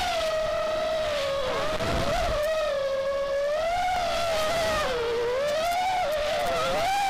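Brushless motors and propellers of a QAV210 FPV racing quadcopter (Emax RS2205-2300KV motors, DAL T5045 props, 4S battery) whining in flight, one continuous tone that keeps rising and falling in pitch with the throttle. A brief low rumble about two seconds in.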